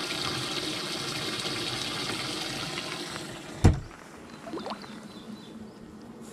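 Steady rush of water running in a boat's livewell, which stops a little after three seconds in, followed by a single loud knock.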